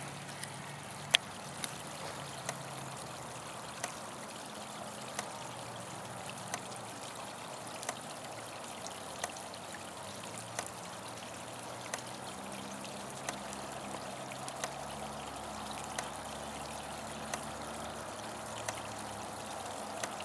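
Electric fence ticking: a sharp, regular click about every 1.3 seconds, over a steady trickle of water.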